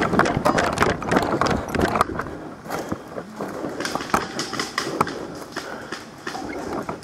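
Quick footsteps on rough ground with gear rattling and knocking, dense for the first two seconds and then scattered.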